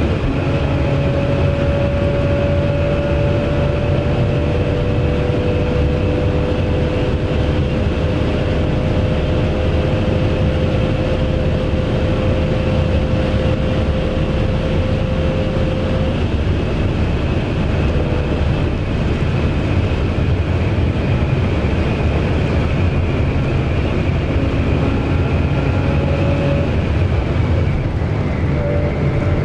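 Porsche 997 Carrera S's flat-six engine and road noise heard from inside the cabin while lapping the track under steady throttle. The engine note holds nearly level, sagging slightly in pitch over the first fifteen seconds or so.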